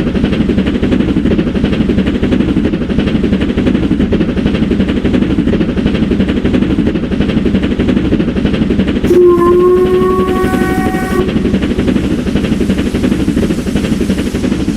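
Steam locomotive sound effect: a train running with a fast, steady chuffing beat, and one whistle blast of about two seconds some nine seconds in.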